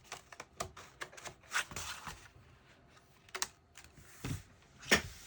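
Irregular light taps, clicks and brief rustles of paper and cardboard being handled and pressed into place on a work surface.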